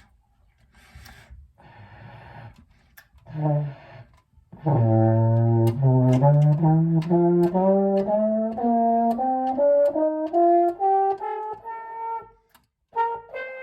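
French horn played with the thumb trigger held down: after a short low note, a slow ascending scale of separate notes starts about four and a half seconds in and climbs about two octaves from low in the horn's range.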